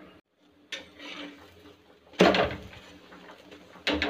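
Kitchen clatter of cookware and utensils: three knocks, about a second in, at two seconds (the loudest) and near the end, each ringing briefly, while a paratha is being cooked.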